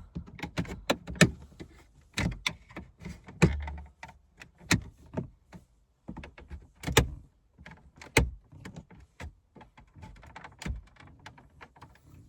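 Plastic dashboard trim of a Mk5 Volkswagen Golf being pulled and worked loose by hand: an irregular run of sharp clicks, snaps and knocks of hard plastic, with a few short pauses.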